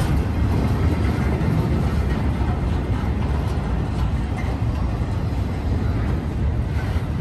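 BNSF intermodal freight train of truck trailers on flat cars rolling past slowly after pulling out of the yard: a steady low rumble of steel wheels on rail with faint scattered clicks.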